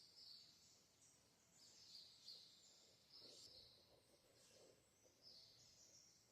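Faint birdsong: a bird giving a series of short, high chirps about once a second.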